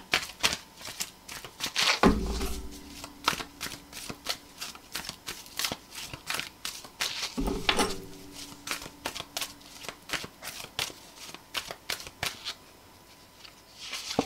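A deck of tarot cards being shuffled by hand: a quick run of crisp card flicks, with two duller knocks, about two seconds in and again near the middle. The flicking dies away near the end.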